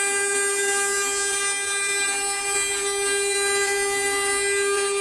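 CNC router spindle motor running at speed with a steady, unwavering whine.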